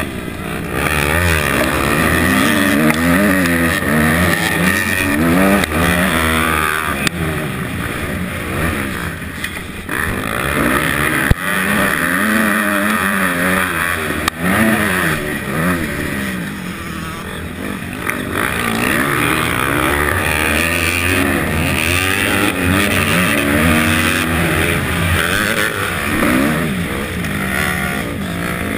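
250 motocross bike engine revving hard, its pitch rising and falling over and over as it is worked through the gears on the track.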